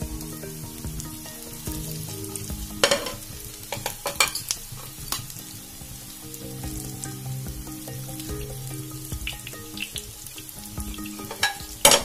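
Soy kebabs sizzling as they deep-fry in hot oil in a flat pan. Sharp metallic clinks sound as a perforated steel skimmer and tongs knock against the pan while the fried kebabs are lifted out, loudest about three seconds in and again near the end.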